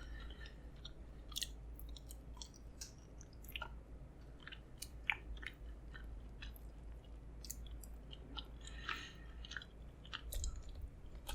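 Faint close-up chewing of food, with small, irregular wet mouth clicks scattered through and a brief cluster of them about nine seconds in.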